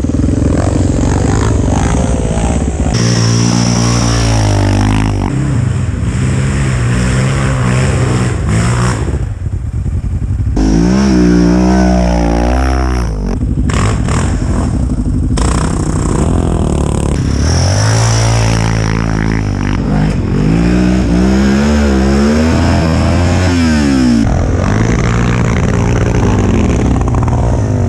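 Sport quad engines revving hard under throttle, the pitch climbing and dropping again and again through gear changes, with abrupt jumps in the sound at several edits between clips.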